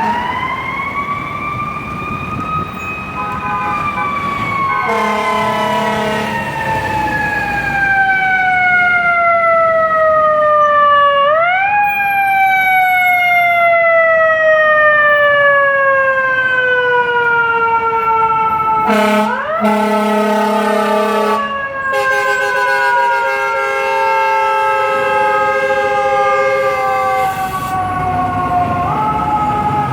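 Fire engine's mechanical siren winding up quickly, then coasting slowly down in pitch over several seconds, and wound up again three more times. Blasts of the truck's air horns sound over it about five seconds in, around twenty seconds in, and in a longer stretch just after.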